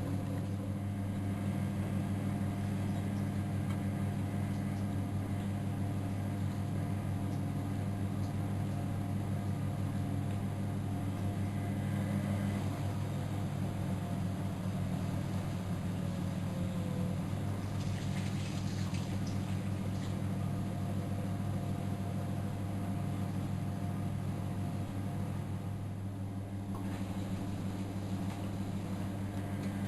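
Miele Novotronic W914 washing machine running on a boil wash, a steady low mechanical hum with brief swishing noise about two-thirds of the way through.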